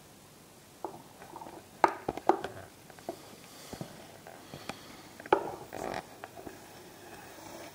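Handling noise: a few sharp knocks and clicks with soft rustling. The knocks come about a second in, twice around two seconds in, and once more past five seconds.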